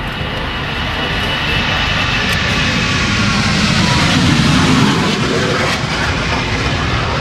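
Lockheed F-117A Nighthawk's two non-afterburning General Electric F404 turbofan engines at take-off power as the jet rolls and lifts off. A broad jet noise with a high whine, growing louder to its peak about four to five seconds in, then easing slightly.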